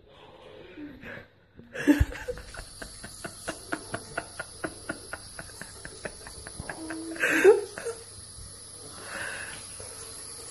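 A tap running into a bathroom sink with quick repeated splashes, about four a second, as someone rinses his face. A sharp knock comes about two seconds in, and a loud cry of distress around seven seconds in.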